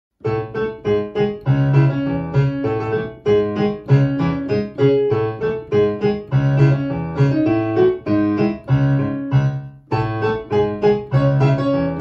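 Background music on piano: a steady run of struck notes over a repeating bass figure, with a brief pause shortly before the end.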